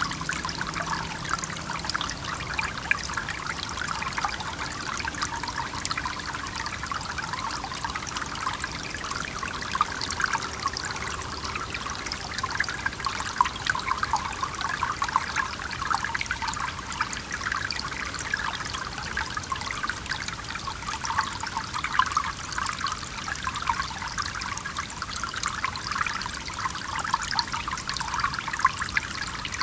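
Stream trickling and babbling steadily, a dense patter of small splashes.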